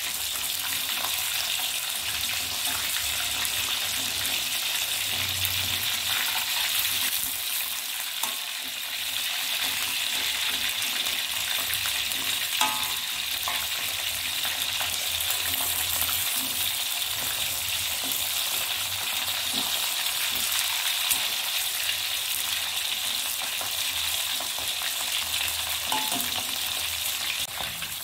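Whole short mackerel (ikan kembung) deep-frying in a wok of hot oil, a steady sizzle, with a spatula now and then turning the fish.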